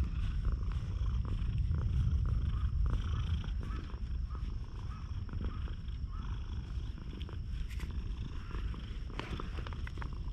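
A domestic tabby cat purring steadily while its head and cheeks are stroked close to the microphone.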